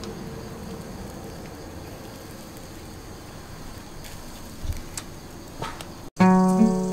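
Fish roasting on a wire grill over charcoal embers: a steady hiss with a few faint taps as a wooden stick turns the fish. Acoustic guitar music starts abruptly about six seconds in.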